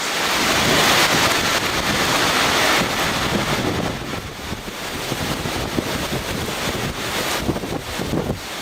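Hurricane-force wind gusting at about 60 to 70 mph and blasting the microphone, as the hurricane's eyewall closes in. It is strongest for the first three seconds, then eases a little.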